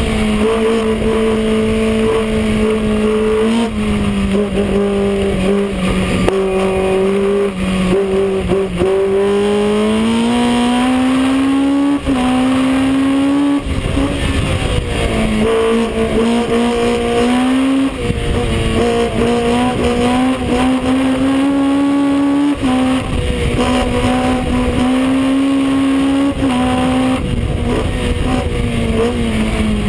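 Racing engine of a 1963 Lotus 23B Ford heard from on board at full volume. It pulls hard, its note climbing and then dropping back several times at gear changes, and falls away near the end as the car slows.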